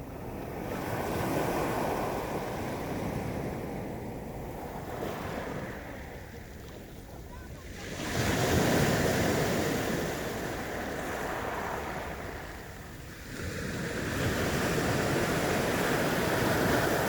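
Sea waves washing onto the shore, the surf swelling and easing in three surges, the loudest about halfway through.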